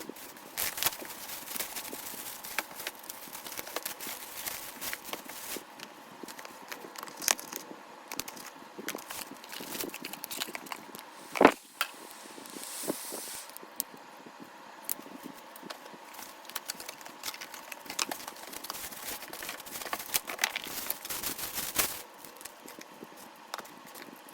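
Packaging being opened and handled: crackling and crinkling rustles with scattered clicks and scrapes, and one sharp knock about halfway through followed by a short hissing rustle.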